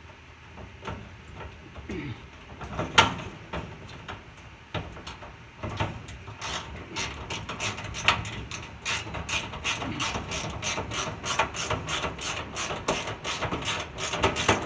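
A hand ratchet clicking in quick repeated strokes, about three to four clicks a second, as a screw or nut is driven during dryer reassembly. Before it come a few scattered clicks and knocks of tools and metal parts, the loudest about three seconds in.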